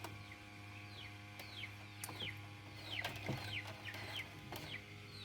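Birds chirping: many short falling chirps, two or three a second, over a steady low hum, with a few faint knocks of handling.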